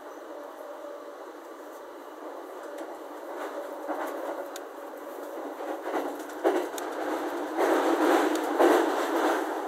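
E231-series electric commuter train running along the track, heard from inside the carriage: a steady running noise that grows louder about three seconds in, with scattered clicks and knocks. It is loudest in the last two seconds.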